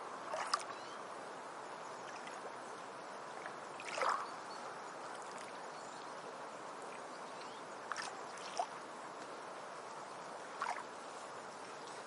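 Beach ambience: a steady wash of surf with small waves lapping and splashing now and then, five short splashes in all, the loudest about four seconds in.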